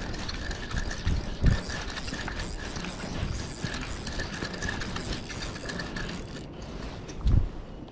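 Fishing reel being cranked: a steady gear whir with fine rapid clicking that stops about six seconds in. Two short low thumps, about a second and a half in and near the end, are the loudest sounds.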